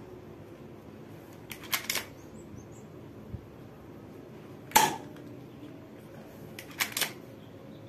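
Spring-powered Glock 18 alloy airsoft pistol firing one sharp shot about five seconds in. Softer clicks come in a short cluster about two seconds in and again near seven seconds, as the slide is pulled back to cock it between shots.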